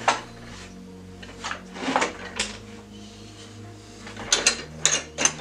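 Sharp knocks and clunks from handling a large gold picture frame and its corner vises on a workbench: one at the start, a few in the middle, and a quick cluster near the end.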